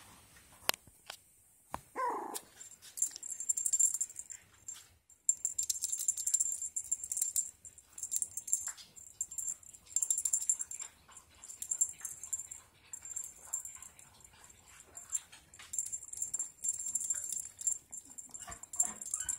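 Young parti Yorkshire terrier puppies whimpering: a short yelp falling in pitch about two seconds in, and a run of little whimpers near the end, between bursts of high hiss.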